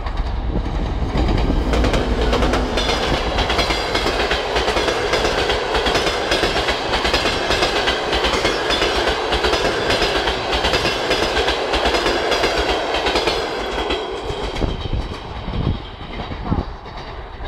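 TEP70 diesel locomotive passing at about 80 km/h, its deep engine rumble strongest in the first couple of seconds. The passenger coaches follow with a steady clatter of wheels over the rail joints, which fades over the last few seconds as the train recedes.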